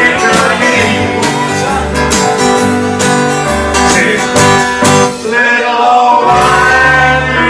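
Full band playing a country song: acoustic guitar strumming with electric bass, drums and piano, and a male voice singing.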